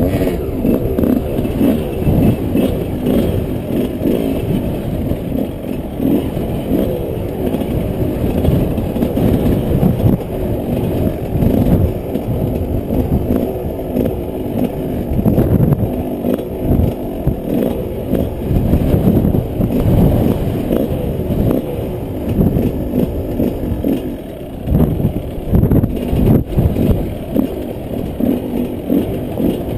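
Yamaha 125 off-road motorcycle engine running under way, its level rising and falling unevenly as the throttle is worked, with a brief drop about three-quarters of the way through.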